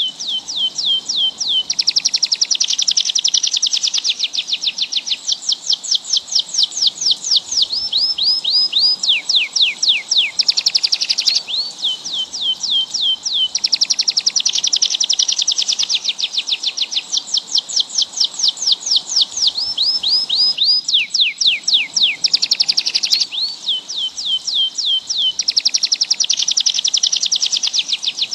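Songbird singing: fast runs of high, downward-sliding whistled notes alternating with dense buzzy trills, in phrases repeated over and over.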